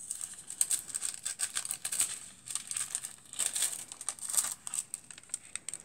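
Thin silver transfer foil sheet and the stamped paper over it crinkling as they are peeled back off cardstock after foiling. Irregular crackles run throughout.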